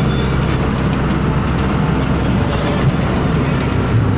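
Inside a moving government bus: a steady, loud low engine drone, with the bus body and fittings rattling as it drives on.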